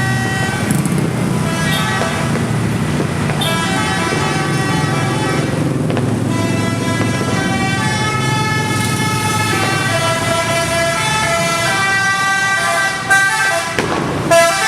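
Telolet musical air horn on an intercity bus playing a string of multi-note tunes that step from note to note, over the low rumble of the bus's engine. A couple of sharp bangs sound near the end.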